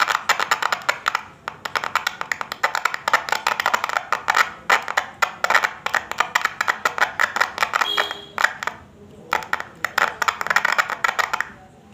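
Horn loudspeaker driver unit crackling with rapid, irregular clicks as wire leads are pressed and scratched against its terminals, a test showing the repaired driver responds. The crackling breaks off briefly about eight and a half seconds in, then resumes.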